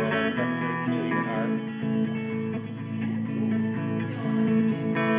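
Electric guitar playing the accompaniment of a country-style song, sustained notes ringing, with no singing.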